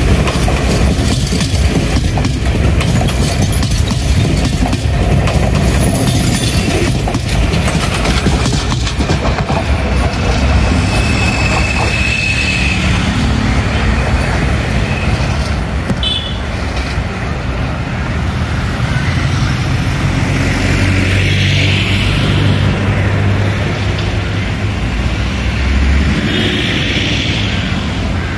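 Passenger train coaches rolling past close by, their wheels clattering rhythmically over the rail joints, giving way to a steady low rumble as the train moves off.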